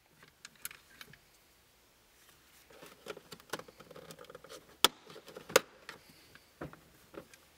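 Toyota Corolla's automatic gear shifter being moved into Drive and its parking brake being set: faint clicks and knocks, a run of small clicks in the middle and two sharper clicks about five seconds in.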